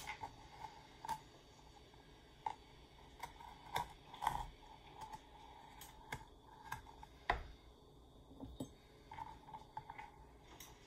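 A small knife tapping and scraping on a plastic cutting board as vanilla beans are split lengthwise: faint, irregular clicks and taps, a couple of them louder.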